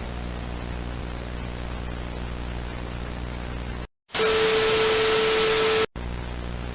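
Steady static hiss over a low buzzing hum. About four seconds in it cuts out for a moment, then a louder blast of static with a single steady mid-pitched tone runs for under two seconds, cuts out again, and drops back to the quieter static and hum.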